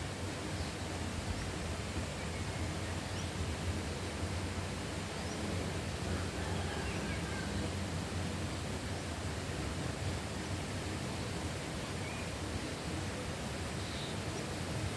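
Rural outdoor ambience: a steady rushing noise with a few faint, scattered bird chirps.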